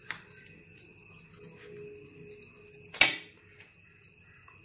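Quiet handling as cotton thread is pulled and knotted around a banana-leaf parcel, with one sharp click about three seconds in.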